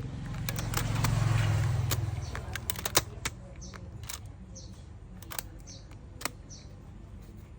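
Scattered small sharp clicks and taps, one louder about three seconds in. Under the first two seconds a low hum swells and fades.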